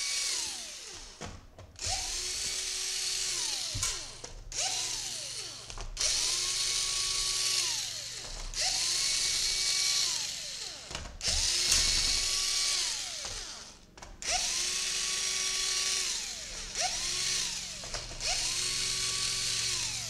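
A small powered screwdriver running in repeated short runs of one to two seconds, backing out a laptop's bottom-case screws. Each run spins up to a steady whine and winds down again, about eight times.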